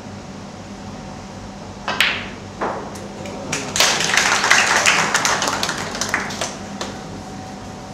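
Two sharp knocks, then about three seconds of audience applause in a snooker hall.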